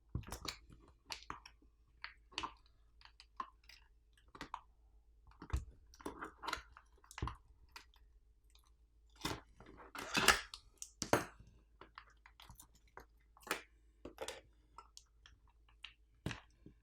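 Irregular clicks, taps and short crunching scrapes of a power bank being taken apart by hand, with plastic parts and tools knocking and prying. A longer crunching scrape comes about six and about nine to ten seconds in.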